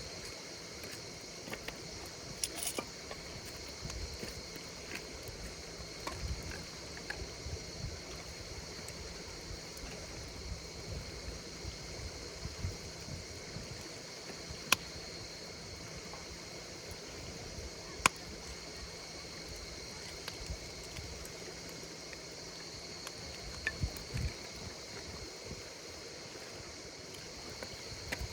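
Campfire crackling with scattered sharp pops, the two loudest about fifteen and eighteen seconds in, over insects calling in a steady high-pitched trill.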